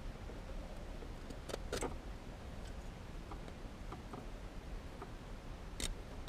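A few sharp clicks from hand work on a shift boot, a close pair about one and a half seconds in and another near the end, with fainter ticks between, over a low steady hum.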